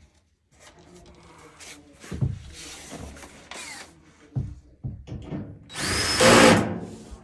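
Cordless drill driving screws into a clothes dryer's sheet-metal panel in several short runs, the last one the longest and loudest.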